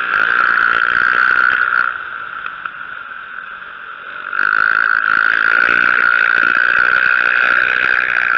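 Dirt motorcycle engine running under throttle on an ice track. It drops away for about two seconds as the throttle is eased off, then comes back loud about four seconds in.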